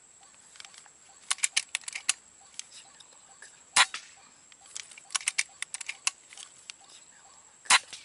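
Two shots from an air rifle firing slugs, about four seconds apart, the second a follow-up so the hit white-breasted waterhen does not run off. Clusters of quick sharp clicks come before the first shot and between the two.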